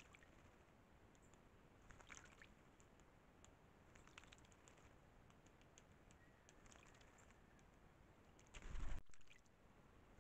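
Faint splashing and flicking of water as a bird bathes in a shallow pool, coming in short bursts every couple of seconds. A louder, deeper thump or rumble about nine seconds in.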